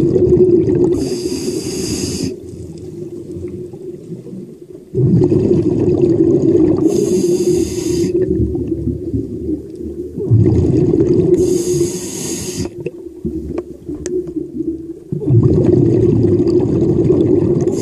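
A diver's breathing picked up underwater, in a cycle of about five seconds. Each breath is a long rumble of exhaled bubbles, with a short hiss of breath near its end.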